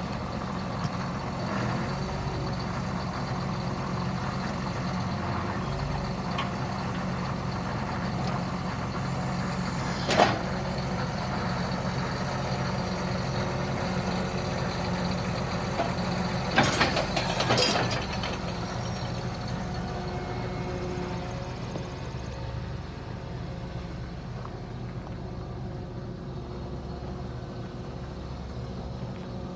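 Tractor engine running steadily while the John Deere 2510H anhydrous applicator's toolbar wings fold up hydraulically, with a sharp metal clunk about ten seconds in and a cluster of clunks around seventeen seconds.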